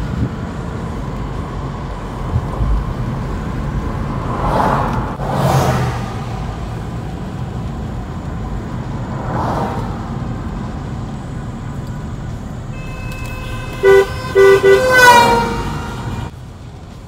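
Steady road noise inside a moving car, with oncoming vehicles whooshing past about 5 and 10 seconds in. Near the end a car horn toots three short times, then a longer honk falls in pitch as an oncoming car passes.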